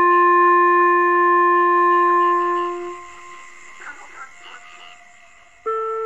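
Background music on a wind instrument: one long, low held note that fades out about halfway through. After a quieter gap, the melody comes back in suddenly near the end.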